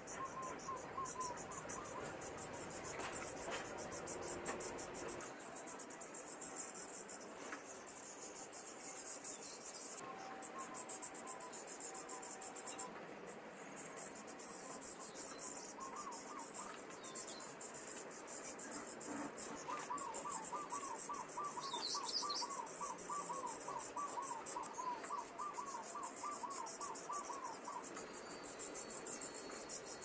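Common starling nestlings begging inside a wooden nest box: a continuous high, fast rasping chorus. About two-thirds of the way in, a separate run of quick chirps comes in at about three a second and goes on for some eight seconds.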